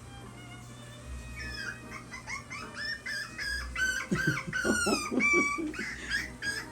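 Puppy crying, a rapid string of short, high-pitched whines and squeals that rise and fall. It starts about a second in and is loudest around the middle, where some lower yelps join in.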